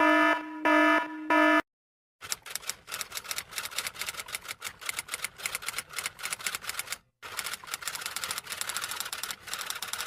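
An electronic alarm tone pulsing about three times and cutting off a second and a half in. After a short pause, typewriter keys clack in a rapid run, with a brief break about seven seconds in.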